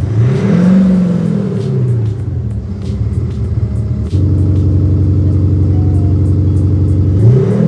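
BMW X3's engine note played through a Kufatec Sound Booster active sound actuator. It starts with a rev that rises and falls, then settles to idle. About four seconds in, the synthetic note switches abruptly to a different, steady, deeper-sounding preset, and a second rev begins near the end.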